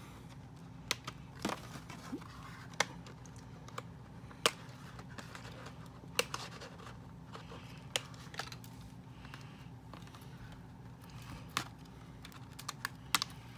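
Small hand cutters snipping the twist ties that hold a doll to its cardboard box insert: a series of sharp, isolated clicks at irregular intervals, a second or more apart, with light cardboard rustling.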